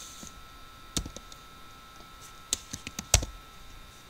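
A few separate laptop keystrokes and clicks, about half a dozen spread over a few seconds, the loudest about three seconds in.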